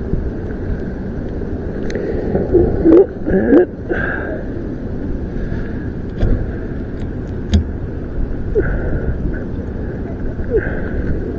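Steady wind rumble on the microphone, with scattered sharp clicks and a few short squeaks, loudest about three to four seconds in, as a wiper blade is handled and clipped onto its wiper arm.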